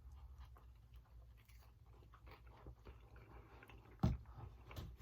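Someone chewing fast food, with small wet mouth clicks and crunches, and a louder low thump about four seconds in.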